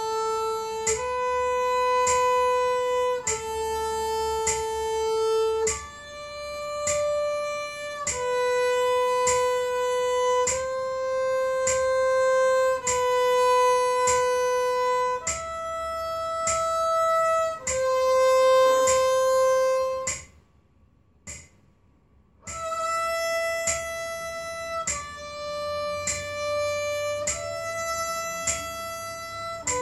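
Solo violin playing a slow beginner exercise: single sustained bowed notes, each a second or two long, stepping from pitch to pitch. There is a pause of about two seconds about two-thirds of the way through before the notes resume.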